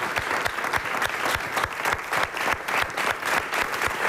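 Studio audience applauding, many hands clapping in a dense, steady stream.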